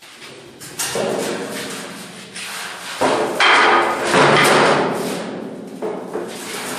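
A large empty metal tank being rolled and shoved onto a steel pallet-racking frame, its hollow shell ringing as it moves against the steel. The noise starts about a second in and is loudest from about three seconds in.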